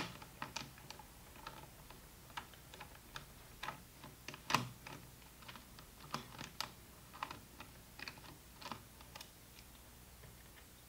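Phillips screwdriver backing out the small screws that hold an Em50G data logger's circuit board: faint, irregular light clicks and ticks of the driver tip and screws, with sharper ones at the start and about four and a half seconds in.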